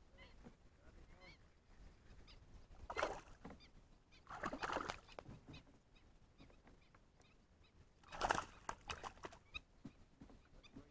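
Geese honking: three loud, rough calls with faint repeated chirps between them.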